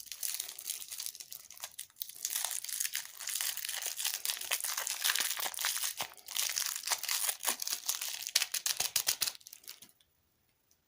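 Plastic food wrapper crinkling and crackling as it is handled and pulled open, in a dense run of small crackles that stops abruptly near the end.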